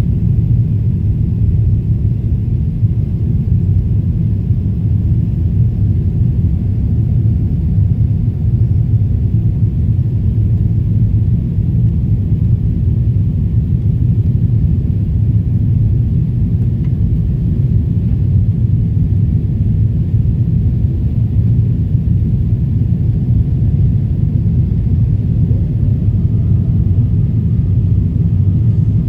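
Jet airliner's engines and rushing airflow heard from inside the passenger cabin as a steady, deep rumble during the climb after takeoff.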